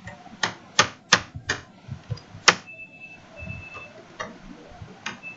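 Computer keyboard keys being typed: single sharp key clicks at an uneven pace, with a gap in the middle.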